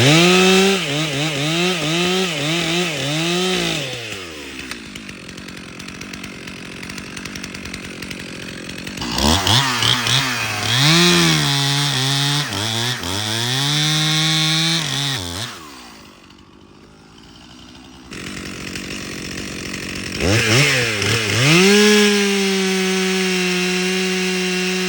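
Two-stroke chainsaw revved in repeated short blips, falling back to a lower, quieter note between bursts. Near the end it is run up and held at a steady high speed.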